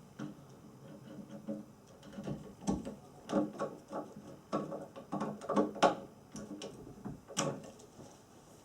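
Screws being turned in by hand with a screwdriver into a flat-pack wooden chair: a series of irregular clicks, light knocks and short creaks.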